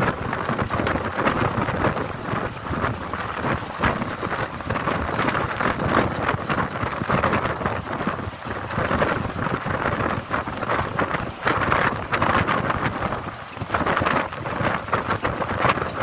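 Loud rushing wind and road noise from a vehicle driving at speed, with the airflow buffeting the phone's microphone into a rough, crackling hiss.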